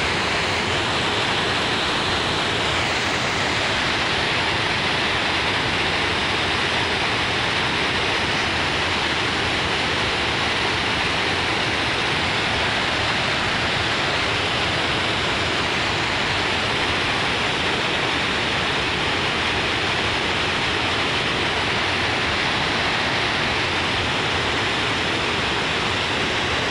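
River water pouring over a low dam's spillway, a loud, steady rush of falling whitewater that keeps up without change.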